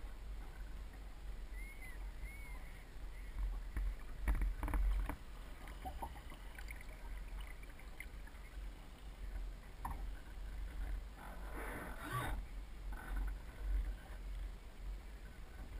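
Water splashing and lapping irregularly against the hull of a Soling 1 meter model sailboat under sail, heard from a camera on its deck, over a constant low rumble of wind on the microphone.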